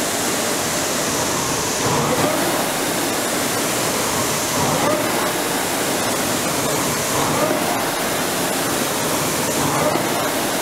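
Concept2 indoor rower's flywheel fan whooshing steadily as it is rowed, swelling with each drive about every two and a half seconds.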